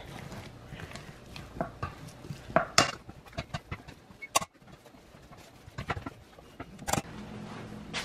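Metal potato masher pressing boiled potatoes and butter in a stainless steel pot, with irregular knocks and clinks of the masher against the pot; the sharpest clinks come about 3 seconds in and again near 7 seconds.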